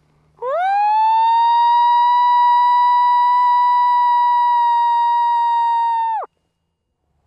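Hand-blown coyote howler call giving one long lone howl: it slides up quickly, holds a steady pitch for over five seconds, then drops off sharply. It imitates a lone coyote's howl to bring coyotes in.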